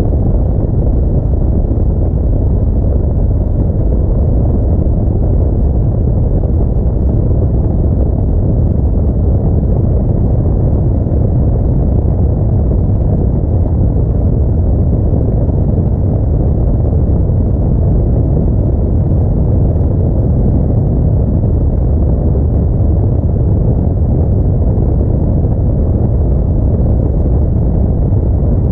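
An Audi A4 driving along, heard as a steady low rumble of road and running noise that stays even throughout.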